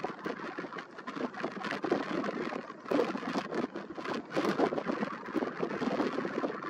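Wind buffeting the microphone outdoors: a rough, gusting rush with many short crackles, rising and falling in strength.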